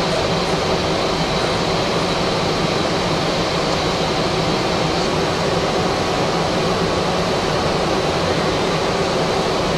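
Steady flight-deck noise of a Boeing 757 in flight: an even rush of air with a low hum and a faint high whine underneath.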